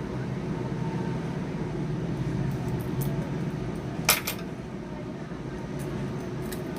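Small hard clicks of tools on a phone's circuit board as a sticker is peeled off, two sharp ones close together about four seconds in, over a steady low hum.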